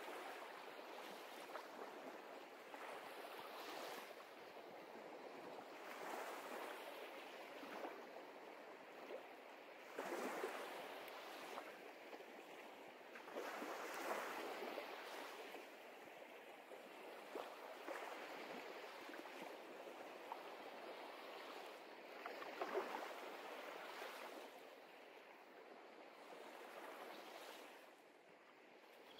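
Faint sea waves washing, swelling and falling back every few seconds.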